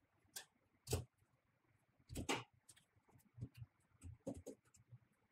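Quiet handling noises: a few light knocks and rustles as ratchet-strap webbing and its metal buckle are fitted onto a metal sewing clamp plate, the loudest about a second in and just after two seconds.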